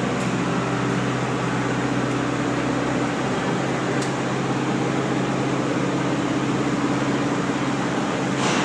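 JLG boom lift's engine and hydraulic drive running with a steady low hum as the boom raises the work basket.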